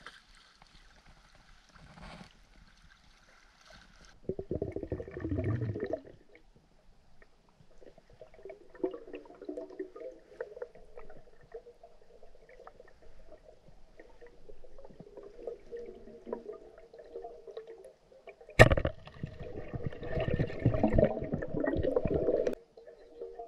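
Water heard underwater through an action camera: gurgling and swishing, with a short churning burst a few seconds in. Near the end comes one sharp snap, the loudest sound, followed by a few seconds of loud churning that stops suddenly. This is the speargun firing and a speared tilapia thrashing on the spear.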